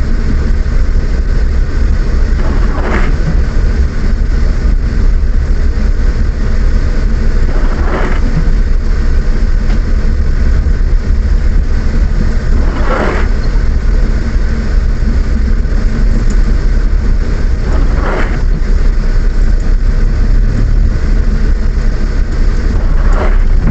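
A car driving in the rain: a steady, loud low rumble of engine and road, with a brief swish that recurs about every five seconds.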